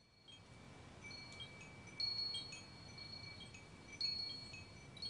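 Small chimes ringing: two high tones held, with scattered short high pings at different pitches and two louder strikes about two and four seconds in, over a faint low rumble.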